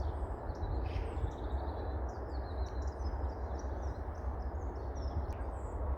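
Small birds chirping and calling on and off over a steady low background rumble.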